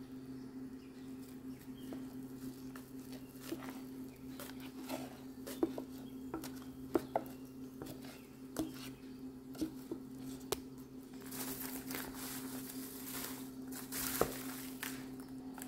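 Popped popcorn in a bowl giving scattered light clicks and crackles. From about two-thirds of the way in it rustles and crunches more densely as a wooden spoon tosses it with caramel sauce. A steady low hum runs underneath.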